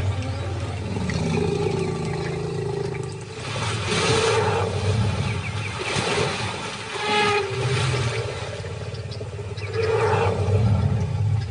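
Lions growling and snarling in three loud outbursts, the last near the end, over a deep steady rumble.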